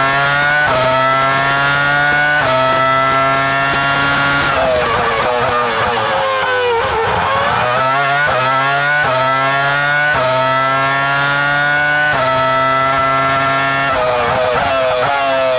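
Renault R24 Formula One car's 3.0-litre V10 at full throttle, rising in pitch through the gears with quick upshifts every second or two. About five seconds in it brakes with a rapid string of downshifts, falling pitch as each gear drops. It then accelerates again through several upshifts and begins braking near the end.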